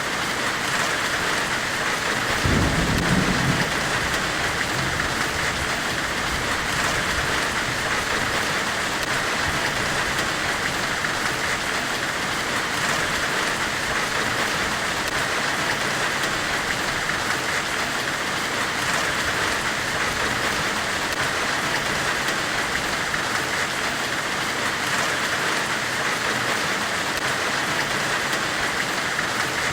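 Steady forge-weld white-noise hiss, even and unbroken, with one brief low rumble about two and a half seconds in.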